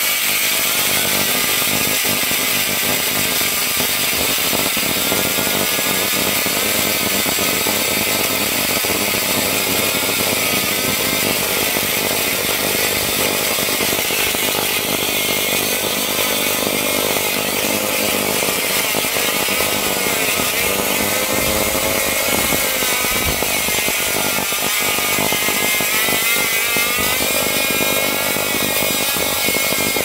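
Bare vacuum cleaner motor running at high speed, a steady loud whine and fan rush whose pitch wavers slightly.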